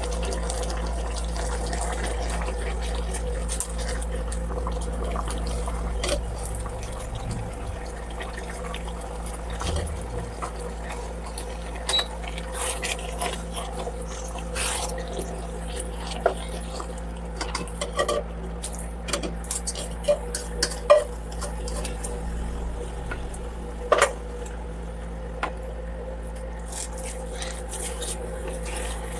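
Broth simmering in a nonstick wok while rice is stirred and folded in with a black plastic spatula: a steady wet bubbling over a constant low hum, with the spatula scraping and knocking against the pan in irregular short strokes, loudest a few times in the second half.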